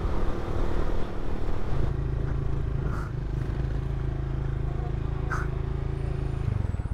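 Motorcycle engine running at low speed, heard through a microphone inside the rider's helmet. About two seconds in, a rough rumble gives way to a steady, even engine hum, with a couple of faint clicks. The hum changes just before the end.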